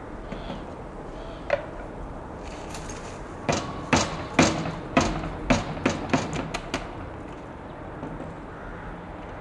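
A red plastic bucket knocked upside down against the rim of a sunken bin, emptying it out: about ten sharp knocks over three seconds, coming quicker towards the end, after a single knock a second and a half earlier.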